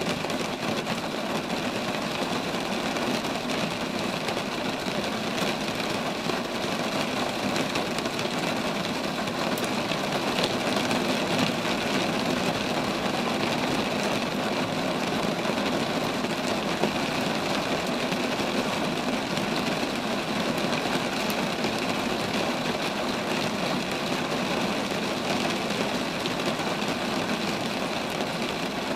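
Steady rain falling on street trees, an even unbroken hiss with scattered sharper drop ticks.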